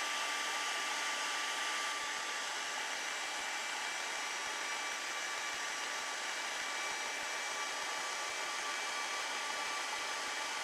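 Conair 1875 handheld hair dryer running steadily on heat, a constant rush of air with a faint steady whine.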